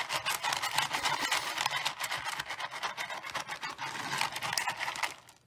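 Potato chips crunching as they are chewed, a rapid dense crackle that cuts off suddenly about five seconds in.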